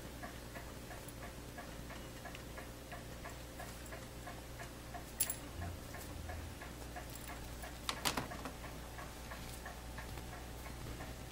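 Steady, even mechanical ticking, about three ticks a second, over a low hum, with a sharp knock about five seconds in and a short clatter about eight seconds in.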